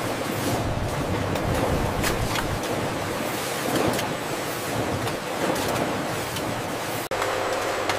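Jar-labelling machinery on a packaging line running: a steady rushing noise with scattered light clicks. About seven seconds in the sound breaks off for an instant and comes back with a steadier hum.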